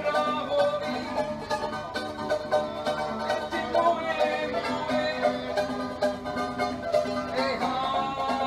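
Acoustic guitar and ukulele played together, strummed briskly in a steady rhythm as Polynesian folk music.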